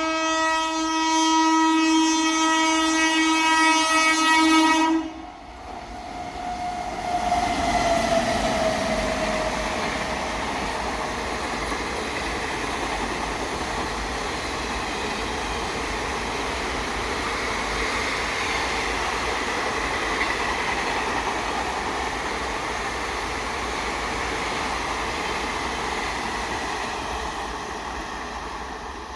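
Indian Railways electric locomotive's horn sounding one long steady blast of about five seconds. The train then runs past close by, a steady rush of wheel and rail noise with a brief falling tone as it goes by, easing slightly near the end.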